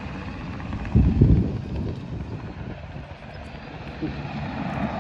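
Sikorsky UH-60 Black Hawk helicopter flying past at a distance, its rotor noise a steady low rumble, with a brief louder low surge about a second in.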